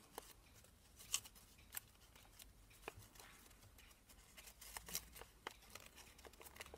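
Faint rustling of folded origami paper as the units of a modular cube are handled and pressed together, with a handful of soft, scattered ticks.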